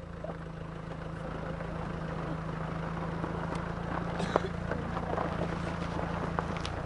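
Steady low engine hum, with a few faint short clicks over it.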